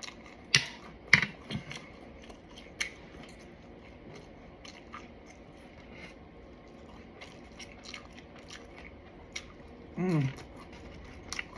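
Close-up eating of crisp fried food: sharp crunches of bites and chewing, loudest in the first couple of seconds, then softer scattered crunches. A short falling hum of voice comes near the end.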